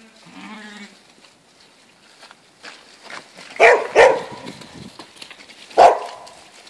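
A herding dog barks three times: two sharp barks close together about three and a half seconds in, and another near the end. A sheep bleats briefly with a wavering voice at the start.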